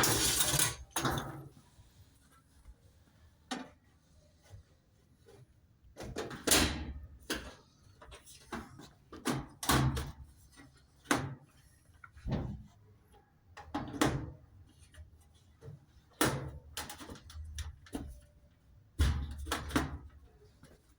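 Irregular knocks and clunks of parts and tools being handled while a washing machine is reassembled, about a dozen separate impacts with short pauses between them.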